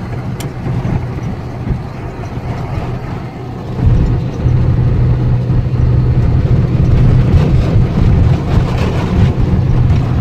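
Car engine and road rumble heard from inside the cabin while driving on a dirt road, a low steady hum that grows louder about four seconds in.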